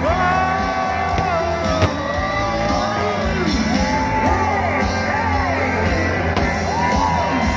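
Loud rock music with a singer's voice over a steady bass line, with a short sharp bang about two seconds in.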